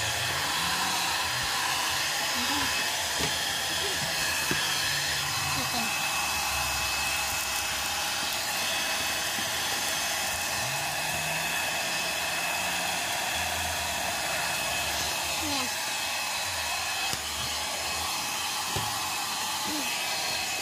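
A hot-air blower runs steadily: an even rush of air with a faint high whine through it. It is heating old vinyl floor tiles to soften their adhesive so they can be peeled off the wood.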